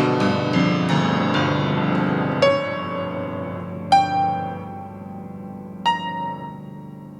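Slow piano music: a flow of notes over held low notes that thins out to three single notes, each struck and left to ring, the whole fading gradually.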